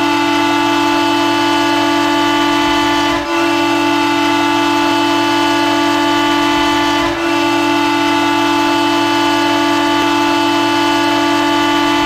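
Elmira Jackals hockey goal horn sounding: one loud, steady horn tone, broken twice by a very short gap into three long blasts.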